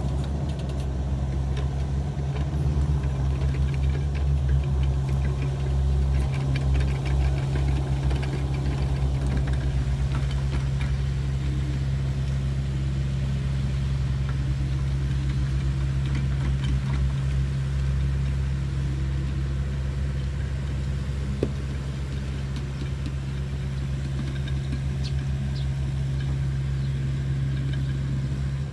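Hitachi ZX65USB mini excavator's diesel engine running steadily, with light scattered clatter through roughly the first two thirds.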